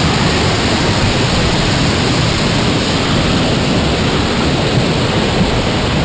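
Steady rush of falling water from the Girlevik waterfall and the white-water stream below it.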